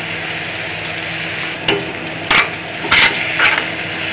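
A steel ladle knocking and scraping against an iron kadai while stirring chicken, onions and dried red chillies, with a steady frying sizzle underneath. Several sharp clinks come in the second half.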